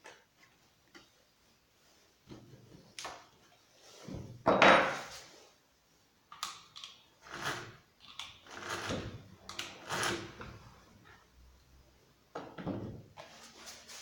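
Handling noise from a Husqvarna chainsaw on a wooden workbench: irregular knocks, clunks and scrapes as the saw's body and bar are moved, shifted and set down on the boards. The loudest clunk comes about four and a half seconds in. The engine is not running.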